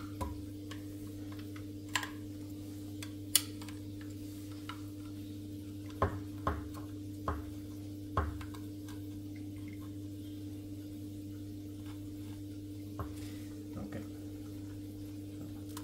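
Scattered light clicks and knocks of a small plastic pH controller being handled and fitted in place, bunched about six to eight seconds in and again near the end. Under them is a steady low hum from the running aquarium equipment in the cabinet.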